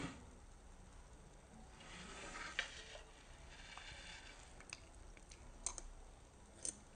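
Metal knife and fork clicking and scraping against a plate while a pancake is cut, with a few sharp clicks spread through and soft scraping between them.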